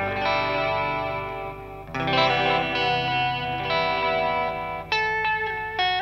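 Electric guitar chords played through a Madbean Dirtbaby PT2399 delay pedal set to a very short delay time for a chorus/vibrato effect. The chords ring on and change about two seconds in and again near five seconds.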